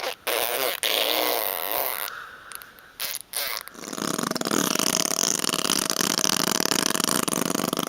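Fart noises: a few short sputtering blasts in the first two seconds, then one long buzzing fart noise of about four seconds starting halfway through.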